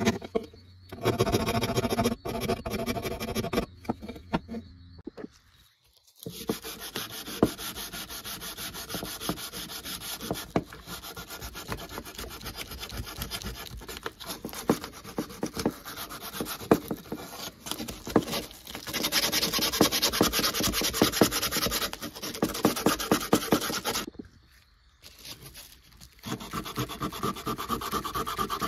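Sandpaper rubbed by hand over a die-cast metal toy tractor casting in quick back-and-forth scraping strokes. The sanding stops briefly twice, about a fifth of the way in and again near the end, then starts again.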